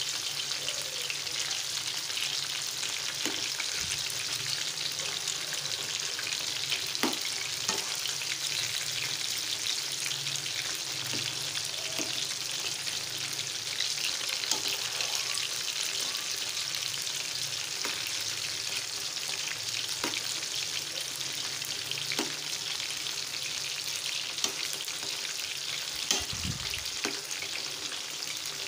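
Flour-coated chicken pieces deep-frying in oil in a steel pan: a steady sizzle, with scattered short clinks as a metal spoon turns the pieces over, the sharpest one near the end.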